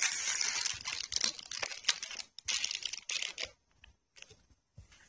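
Clear plastic bags holding resin kit parts crinkling as they are handled, dense and crackly at first, then dropping to a few faint taps about three and a half seconds in.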